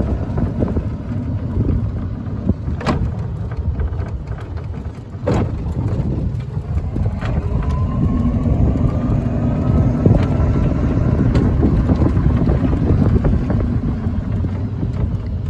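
Western Model 300 electric golf cart (42-volt system) driving, with a steady low rumble of tyres and wind on the microphone. There are three sharp knocks in the first half, and from about eight seconds in a faint whine rises in pitch.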